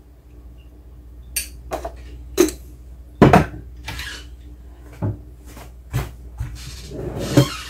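Kitchen handling noises: a run of about nine sharp knocks and clicks as a lidded salt pot is put away in a wall cupboard, the loudest knock about three seconds in.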